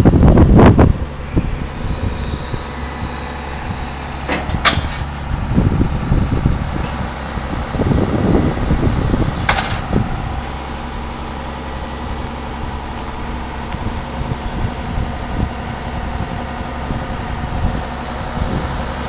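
Tractor engine idling steadily. Wind buffets the microphone loudly in the first second, and there are two sharp clicks, about 5 and 10 seconds in.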